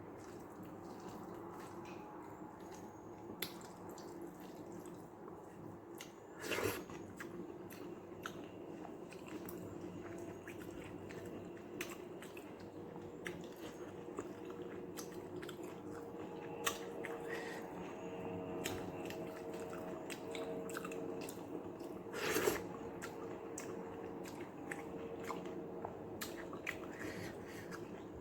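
Close-up chewing and eating sounds of a person eating rice soaked in watery sambar: wet squishing and small mouth clicks, with two louder bursts about six seconds in and near the end.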